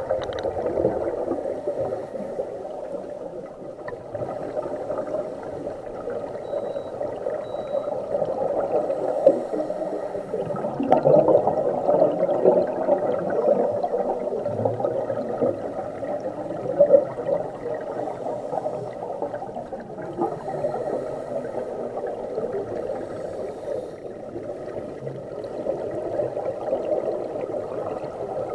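Bubbling and gurgling heard underwater, typical of a scuba diver's exhaled air bubbles. It swells and falls irregularly.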